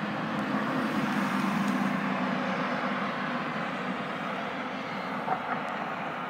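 A motor vehicle's engine hum passing by over a steady traffic rumble, swelling in the first two seconds and then fading away. A light tap about five seconds in.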